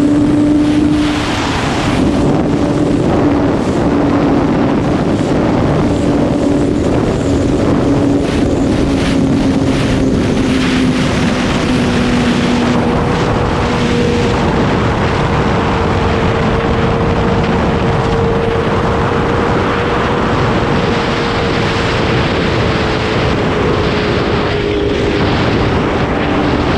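2008 Yamaha R6 inline-four with an Akrapovic exhaust cruising at a steady, nearly constant engine speed, under heavy wind rush on the helmet microphone.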